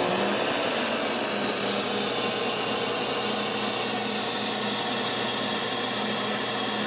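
SuperFlow flow bench running steadily at test pressure, about 20 inches of water and about 338 CFM, its motors whining and air rushing as it draws through an intake pipe with a cone air filter.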